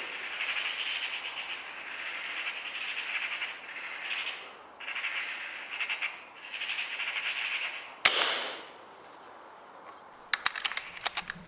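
A single gunshot about eight seconds in, a sharp crack that dies away over half a second, followed near the end by a quick run of sharp clicks. Before the shot there are several seconds of a noisy, high-pitched rattling chatter.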